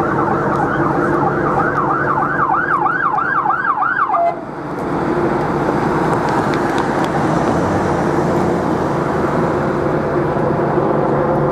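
Police car siren yelping in fast rising-and-falling sweeps, then cutting off suddenly about four seconds in, leaving the steady sound of the vehicle's engine and road noise.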